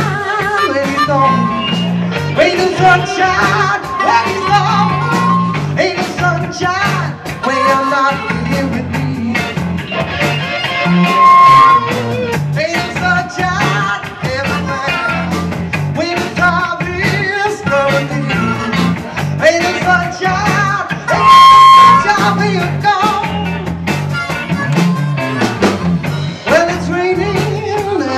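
Live blues-rock band playing: electric guitars, bass guitar and drums under a lead vocal and an amplified harmonica played into a cupped microphone. Twice a loud held note pushes the recording to full scale.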